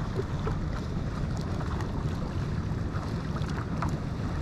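Wind rumbling steadily on the microphone over open water, with small scattered splashes and drips of lake water.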